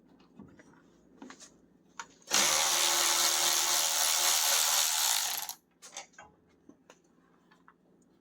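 A handheld power tool, drill-type, runs steadily for about three seconds, driving out a fastener while the truck cab is taken apart. Small clicks and knocks of hand tools and parts come before and after it.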